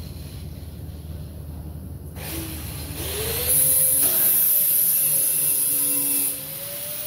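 Grinder spinning up and grinding the high spots off welds on a steel body patch panel, its pitch rising as it comes up to speed. The grinding is loudest, with a high whine, for about three seconds in the middle, then eases off near the end.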